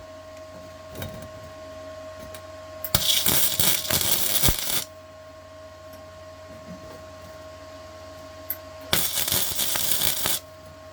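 Electric welder tack-welding on a steel muffler: the arc crackles for about two seconds, stops, then crackles again for about a second and a half near the end.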